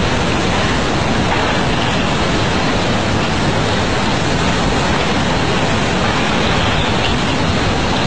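Tsunami floodwater surging through a coastal town: a loud, steady rush of churning water.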